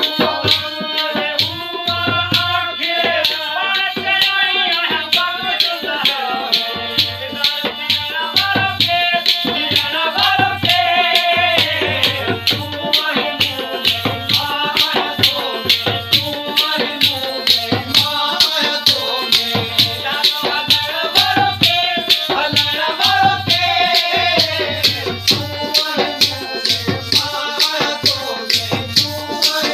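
Live folk music: a harmonium melody with a hand-shaken rattle keeping a fast, even rhythm and a low drum beat underneath.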